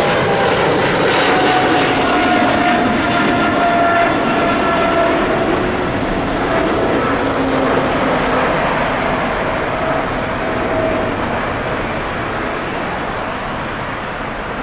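Twin jet engines of a Boeing 777-300 airliner climbing out after takeoff: a steady jet noise with whining tones that slowly fall in pitch, fading gradually as the aircraft recedes.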